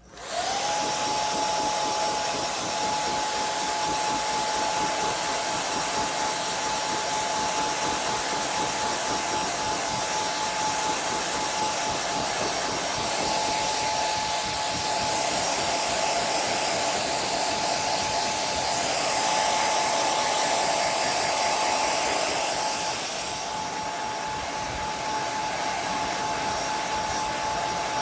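Handheld hair dryer switched on and running steadily: rushing air with a steady motor whine. About 23 seconds in it turns quieter and duller.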